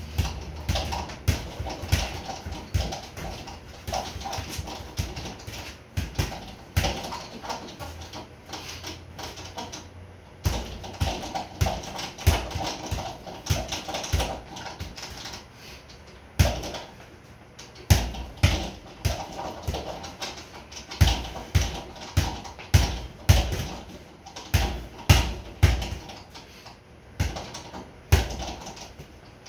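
Boxing gloves striking a sideways double-end bag (a kangaroo bag), with many quick, irregular punches in short flurries and the bag rebounding between hits.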